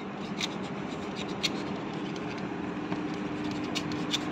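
Steady background noise with a few light metallic clicks as a ball bearing and a fan motor shaft are handled; a steady hum comes in about halfway through.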